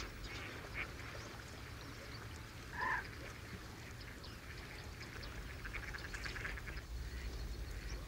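Mallard giving one short quack about three seconds in, over faint steady background noise.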